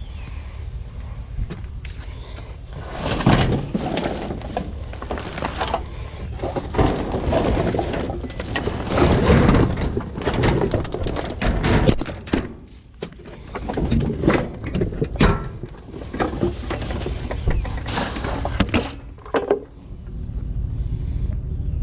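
Repeated clattering, knocking and crashing of hard objects being handled or thrown about, with a vehicle engine running steadily underneath; the clatter dies away shortly before the end.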